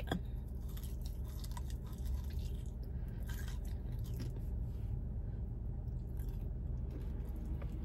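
Chewing a Wingstop chicken wing close to the microphone: faint, irregular mouth clicks over a steady low hum.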